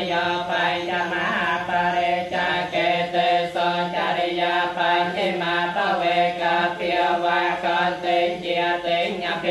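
Theravada Buddhist monks chanting Pali verses together in a steady recitation held on a near-constant low pitch.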